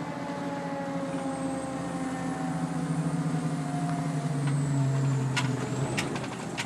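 Fire truck engine running under way, heard from inside the cab: a steady hum that builds over the middle few seconds and eases off again, with a couple of sharp clicks near the end.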